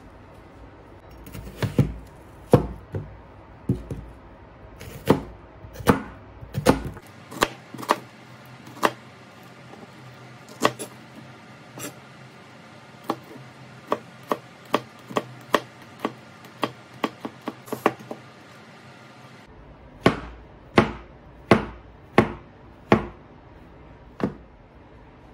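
Santoku knife slicing food on a plastic cutting board: irregular sharp knocks of the blade meeting the board, a quicker run of lighter cuts in the middle, then several loud strokes near the end as mushrooms are sliced.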